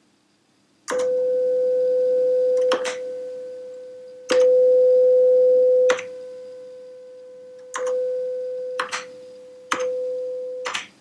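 Amiga 1000 audio test: a steady 500 Hz sine tone from the computer's Paula sound chip, with the low-pass filter on. The tone starts about a second in and steps louder and softer at each click of a function key as the four sound channels are switched on and off. It cuts off near the end.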